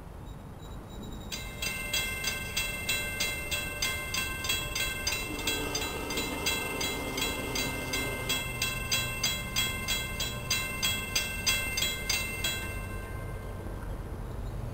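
Railroad grade-crossing warning bell ringing at about two strokes a second. It starts a second or so in and stops near the end, as the crossing gates finish lowering for an approaching train.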